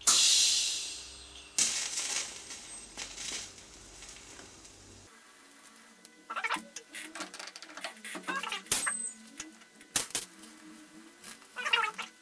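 TIG welding arc on steel while filler wire is fed into the weld. It opens with a loud hiss, then settles into a low wavering buzz broken by sharp crackles and pops.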